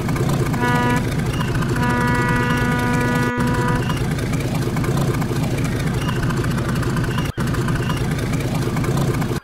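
Steady low rumble of a fishing boat's engine. In the first four seconds two pitched tones sound over it, a brief one and then one lasting about two seconds.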